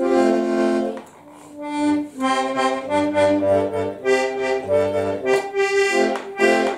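Old button accordion (Schifferklavier) being played: a held chord, a brief pause about a second in, then a run of short chords and notes with the bellows moving.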